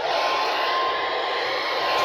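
Steady radio static hiss from a receiver between alert broadcasts, with a faint steady tone near 1 kHz running under it.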